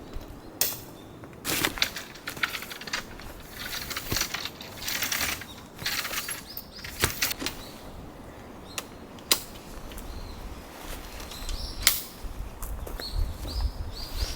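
Tent fabric rustling and flapping, with scattered sharp knocks and clicks of camping gear being handled.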